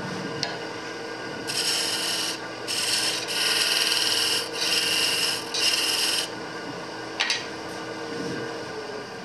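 Five strokes of a flat hand sharpening tool rubbed along the edge of a woodturning gouge: a gritty scraping, one stroke after another, about a second each.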